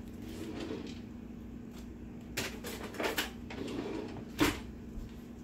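A few sharp knocks and clicks from handling in the kitchen, the loudest about four and a half seconds in, over a steady low hum.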